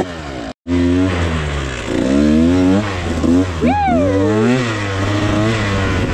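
Dirt bike engine revving up and down, the pitch rising and falling repeatedly, with a brief dropout about half a second in. Around four seconds in, a higher pitch falls away sharply.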